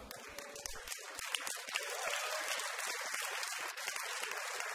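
Congregation applauding: many hands clapping at once, building over the first second and then holding steady.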